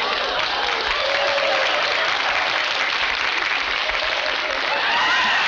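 Sitcom studio audience applauding, a steady dense wash of clapping with a few voices mixed in.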